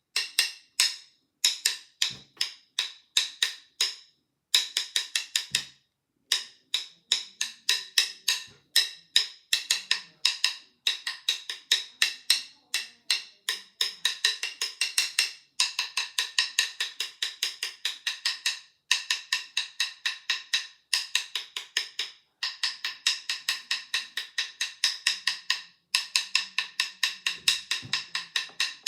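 Rapid runs of sharp, wood-block-like clicks, about six to eight a second, broken now and then by brief pauses.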